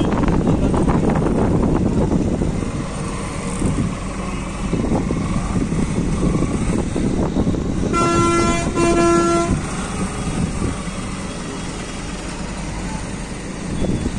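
Steady low rumble of engines and passing traffic, with a horn honking two short blasts about eight seconds in.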